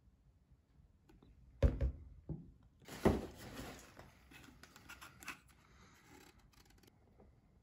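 Plastic product bottles being handled and knocked on a table: two sharp knocks, the second followed by a second or so of rustling, then a few faint clicks.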